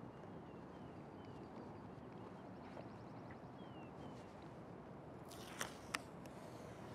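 Masking tape being peeled off a car's painted hatch: a brief crackling rip about five seconds in, with two sharp snaps, over a faint steady background hiss.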